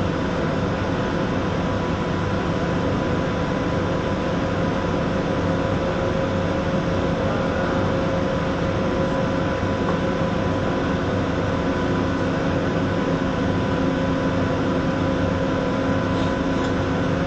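TIG welder running steadily: a constant hiss with a steady electrical hum of several fixed tones, unchanged throughout.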